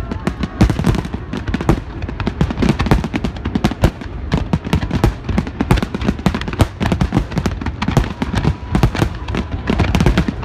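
Fireworks finale barrage: shell bursts and crackling follow one another densely, several bangs a second, without a pause.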